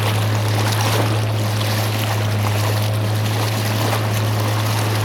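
Boat motor running at a steady speed, a constant low hum, with water rushing and splashing along the hull.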